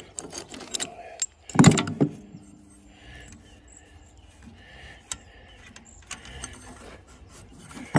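Metal clinks and clanks of a two-jaw gear puller being handled on a rusty V-belt pulley, with one loud clank about one and a half seconds in. Then faint scrapes and light clicks as the loosened pulley is worked along the engine shaft by hand.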